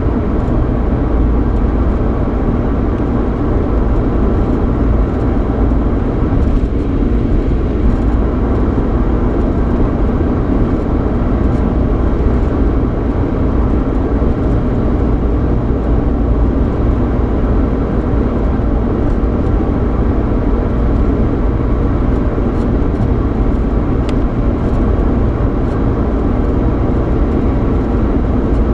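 Steady road noise and engine hum inside the cabin of a 3.8-litre V6 Mustang on the move: a continuous low rumble with faint scattered ticks.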